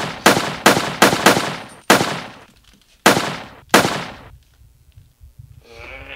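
Handgun gunshots: about seven sharp cracks in the first four seconds, in an uneven rhythm, each with a short fading tail.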